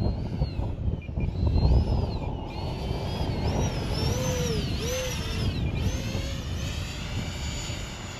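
Whine of an electric ducted-fan RC jet flying a slow, high-alpha pass, its pitch rising and falling as the throttle is worked. Wind buffets the microphone with a heavy low rumble, strongest about two seconds in.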